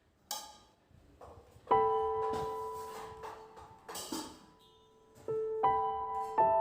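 Soft background piano music: a few sparse notes struck about two seconds in and again near the end, each ringing out and fading.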